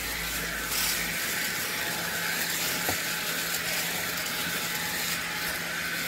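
Steady hiss of dry fallen leaves rustling and skittering across a concrete driveway in the wind.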